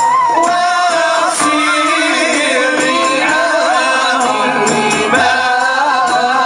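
Moroccan Sufi samaa and madih: a group of voices singing devotional verse together in a continuous, melismatic line, with a few percussion strokes.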